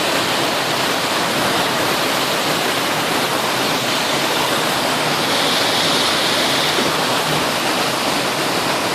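Outdoor water fountain running: a steady, dense rush and splash of falling water.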